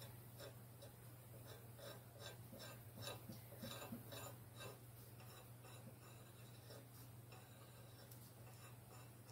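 Near silence: a steady low hum, with faint light scratching a few times a second during the first five seconds or so.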